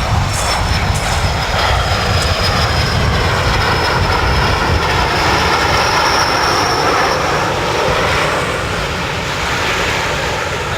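Display aircraft flying past with steady, loud engine noise, easing slightly near the end.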